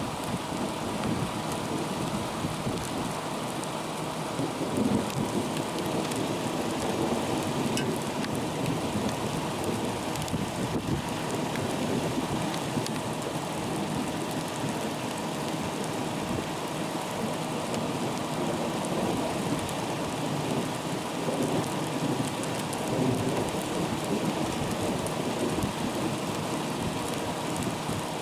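Steady thunderstorm rain falling without a break.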